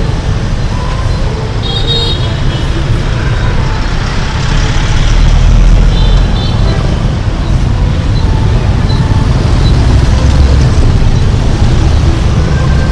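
Dense city street traffic, mostly small motorbike and scooter engines, with cars and a bus moving close by and a heavy low rumble that swells about five seconds in and again around ten seconds. Short high beeps sound about two seconds in and again around six seconds.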